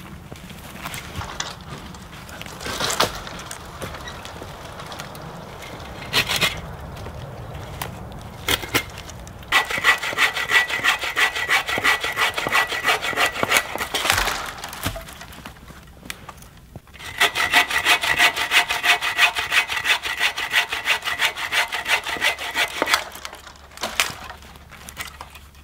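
Agawa Boreal21 folding bow saw cutting through a standing dead cedar trunk, drying with its bark peeling, in fast, even strokes. It saws in two bouts of about five seconds each, the first starting about ten seconds in, with a short pause between. Before the sawing there is rustling with a few sharp cracks of wood.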